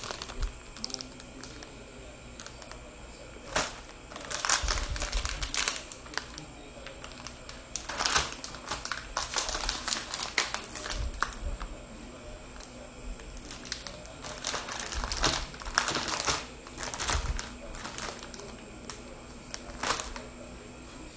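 Plastic instant-noodle packets crinkling as they are handled, in several bursts of rapid crackly clicks.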